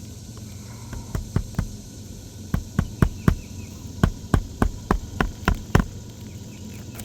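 Hammer driving roofing nails into a replacement asphalt shingle on a roof deck: three short runs of sharp strikes, the last a run of about seven even blows.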